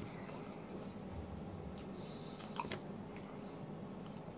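A person chewing a mouthful of pulled pork poutine (gravy-soaked fries, cheese curds and pulled pork), with quiet wet mouth sounds and a few small clicks, one sharper tick about two and a half seconds in. A faint steady hum lies underneath.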